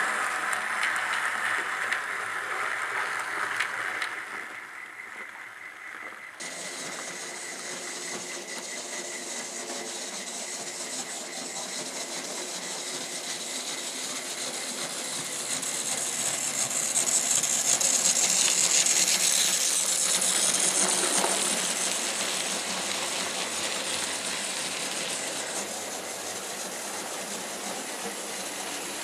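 Model railway locomotives running on the layout: a steady mechanical hum with rattle from the models and their wheels on the track. The sound changes abruptly about six seconds in, and a hiss grows louder about two-thirds of the way through.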